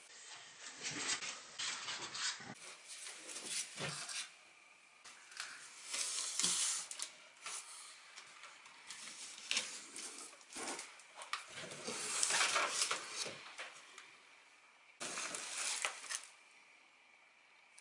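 Cardboard box and packing being handled during an unboxing: irregular rustling and scraping of cardboard flaps, plastic sheets and a plastic-sleeved manual, with a few light knocks. It comes in bursts, loudest about halfway through, with quieter pauses between.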